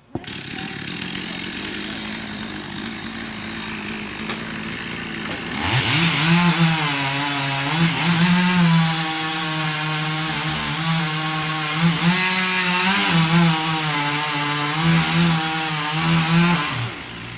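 Chainsaw running, then revved up about six seconds in and held at high speed, its pitch dipping and rising with the load as it cuts wood, before it drops back near the end.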